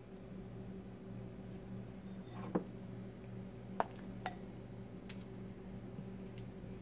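A spoon clinking and tapping against a glass bowl as a cooked chicken breast is set into it: a few scattered light clinks, the loudest about two and a half seconds in, over a faint steady hum.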